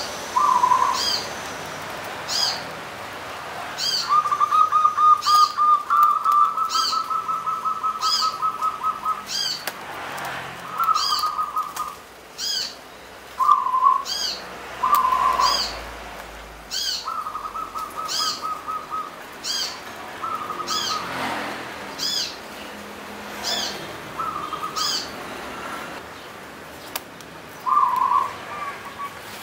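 Zebra dove (perkutut) cooing: rapid, rolling trilled phrases, one long phrase a few seconds in followed by several shorter ones. Another bird gives high chirps about once a second until near the end.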